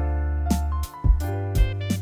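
Background music: an upbeat instrumental track with keyboard or guitar chords over a bass line and a steady drum beat.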